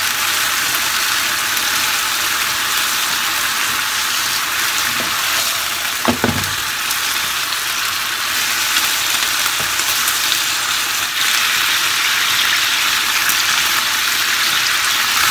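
Konnyaku strips sizzling steadily in sesame oil in a nonstick frying pan, stirred with wooden chopsticks. The sizzle gets a little louder about eleven seconds in.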